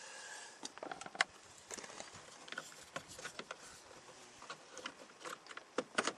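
Scattered light clicks and small rattles of screws and hand tools being handled, with one sharper click about a second in.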